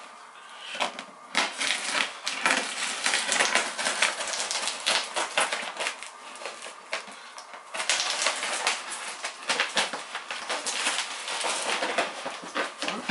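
Shipping packaging being handled and worked open: a rapid, irregular run of crackles, scrapes and clicks from cardboard and packing tape.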